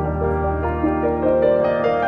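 Instrumental background music: sustained notes moving from one pitch to the next over a held low tone.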